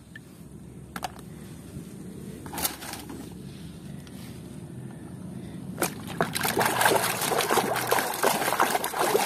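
Hands sloshing and splashing in a plastic tub of muddy water while scrubbing a toy, with a few light knocks at first and the splashing growing busier and louder from about six seconds in.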